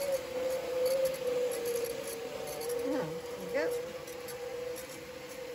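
Ashford electric drum carder's motor running with a steady whine as its drums turn.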